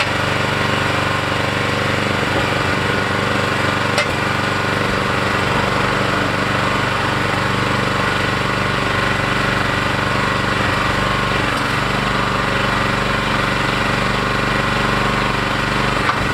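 Small engine of a mini excavator running steadily, with one sharp click about four seconds in.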